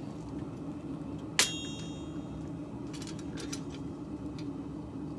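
One sharp metallic clink about a second and a half in, ringing briefly at a few high pitches, over a steady low hum, with a few faint light clicks a couple of seconds later.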